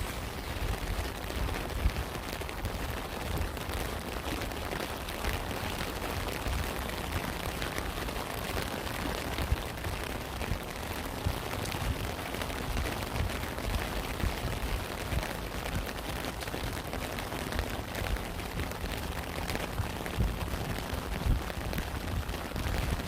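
Steady rain, with many single drops ticking through it and now and then a heavier low thud of a big drop.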